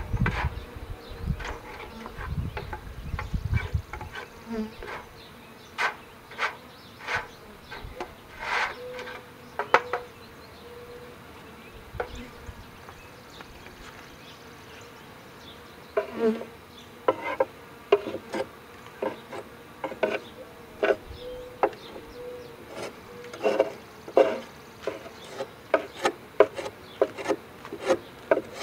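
Honeybees buzzing around an open Langstroth hive, with a faint steady hum coming and going, while wooden hive boards and boxes are handled. The handling gives many short knocks and scrapes, as the wood is worked with a hive tool. There is low rumbling in the first few seconds.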